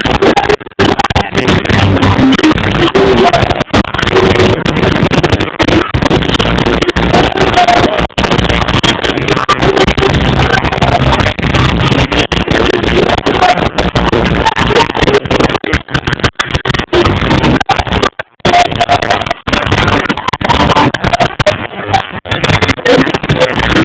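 Live reggae band playing, recorded on a phone so loud that the sound is distorted and muddy, with the treble cut off and many brief dropouts. The uploader calls it horrible sound.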